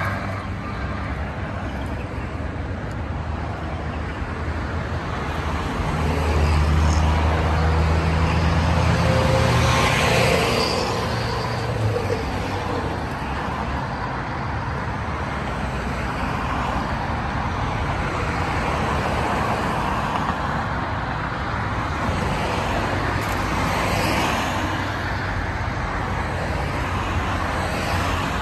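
Road traffic on a city street: a steady wash of passing cars, with one louder vehicle going by from about six to twelve seconds in, loudest around ten seconds.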